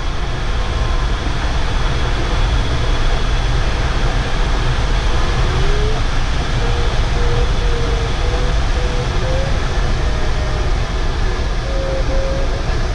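Steady rush of airflow around a DG505 glider's canopy in flight, with a deep low rumble. Over it a faint electronic variometer tone wavers in pitch and, from about halfway, breaks into short beeps that edge higher near the end, the signal of the glider climbing in lift.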